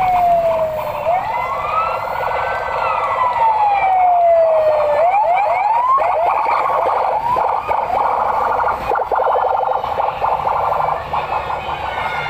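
Police escort sirens of a passing motorcade. A slow wail rises and falls, then a few quick upward whoops follow, and about halfway through it changes to a fast warbling yelp.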